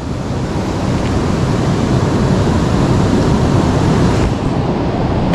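Steady rushing noise of fast-flowing river water close to the microphone.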